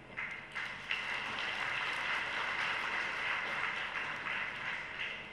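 Audience applauding, swelling about a second in and then holding steady until it cuts off abruptly.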